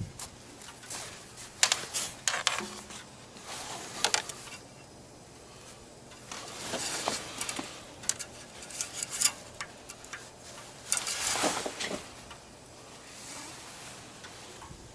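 Scattered light metallic clicks and clinks with a few longer scraping, rustling stretches, from handling the engine's oil dipstick and working around the engine bay.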